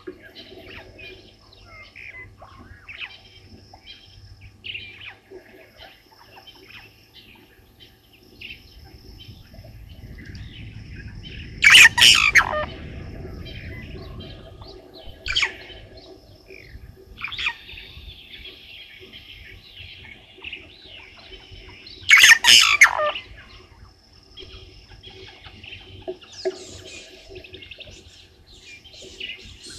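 Wild birds calling: a steady run of short chirps and twitters, with two loud, harsh calls about ten seconds apart, each lasting about a second.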